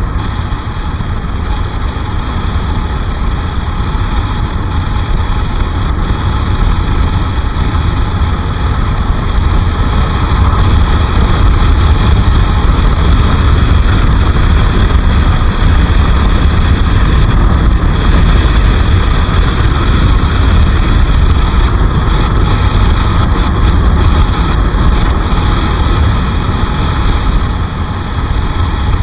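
Bajaj Pulsar RS 200 single-cylinder motorcycle under way, its engine running steadily under a heavy low rumble of wind on the microphone. It gets louder about a third of the way through and stays loud.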